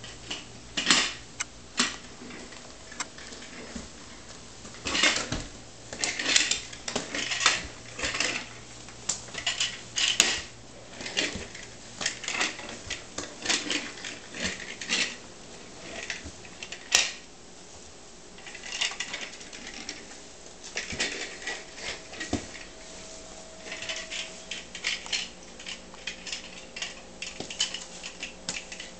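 Small plastic toy car clattering and rattling on a hard vinyl floor in irregular bursts of quick clicks as a crawling baby pushes it along and knocks it down.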